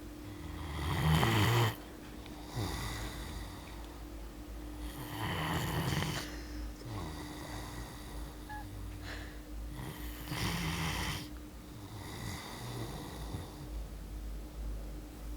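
Great Dane snoring in her sleep: three loud snores about five seconds apart, the first the loudest, with softer breaths in between.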